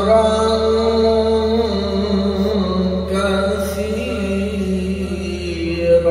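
A male reciter chanting Qur'an recitation in long, melodic held notes with slow pitch bends, amplified through a microphone and PA loudspeaker, over a steady low hum.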